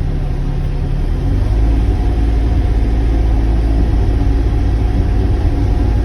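Sany mini excavator's diesel engine running steadily, its low drone growing louder about a second and a half in.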